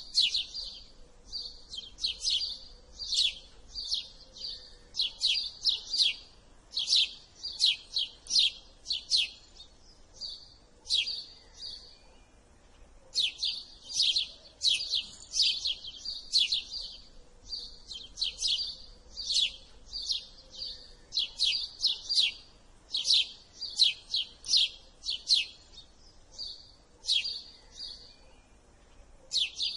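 House sparrow chirping: a fast, uneven run of short, sharp cheep notes, pausing briefly about twelve seconds in and again near the end.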